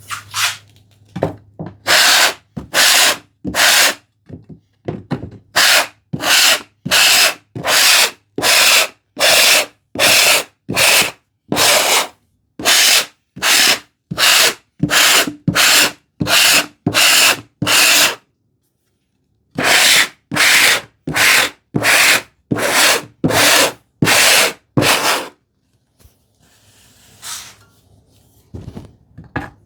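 Handsaw teeth scraped back and forth across the flat backs of wooden tambour slats, the saw used as a toothing plane to roughen the wood for glue. Rhythmic rasping strokes come about three every two seconds, with a brief pause about two-thirds in and a quieter stretch near the end before the strokes resume.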